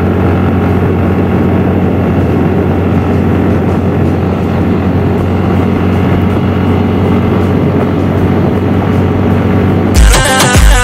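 Motorbike running steadily at road speed, a continuous drone with road noise. Music comes in about ten seconds in.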